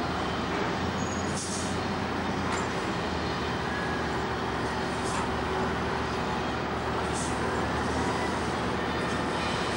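Heavy diesel engines of a wheel loader and a timber truck running steadily, with a faint whine that rises and falls. A few short hisses, about 1.5, 5 and 7 seconds in.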